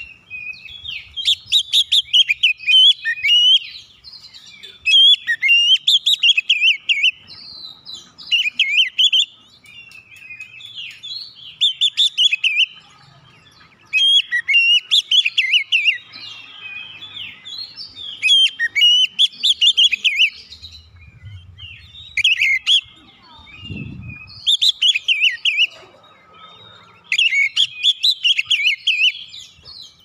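Oriental magpie-robin (kacer) singing: loud, rapid, varied phrases of chirps and whistles delivered in bursts every second or two, with short pauses between them.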